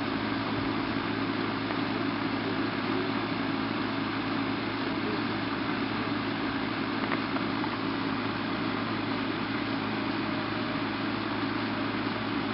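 Steady mechanical drone of an idling engine, an even hum without changes.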